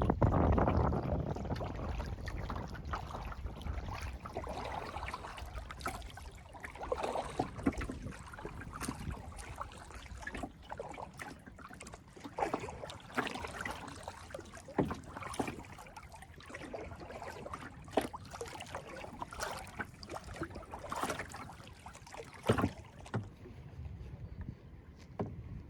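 Kayak paddling on a lake: the paddle blades dip and splash, with irregular drips and small knocks. A louder rush of water at the start fades over the first couple of seconds.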